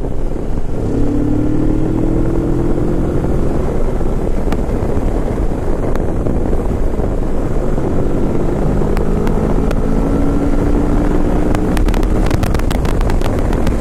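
Kawasaki Vulcan S's 650 cc liquid-cooled parallel-twin engine running at highway speed under a steady rush of wind noise, its pitch climbing slowly twice as the bike pulls. A run of sharp crackles comes near the end.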